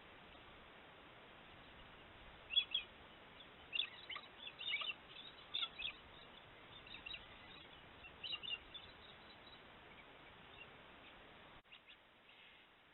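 Birds chirping: scattered clusters of short, high calls over a steady background hiss, busiest in the middle and stopping about three seconds before the end.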